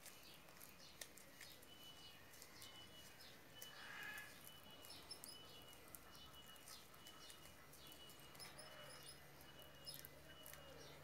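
Near silence: room tone with faint, short, high chirps and ticks scattered through it.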